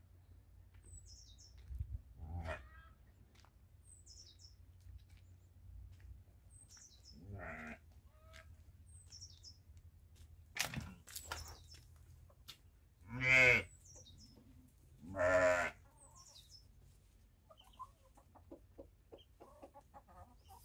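Farm animals calling: four drawn-out, wavering calls, the two loudest about 13 and 15 seconds in, over small high chirps of birds repeating every second or two.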